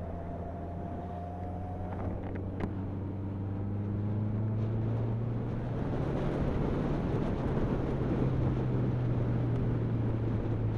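Motorcycle engine pulling as the bike speeds up, its note rising slowly, with wind rushing over the microphone growing louder as speed builds. Two sharp clicks about two seconds in.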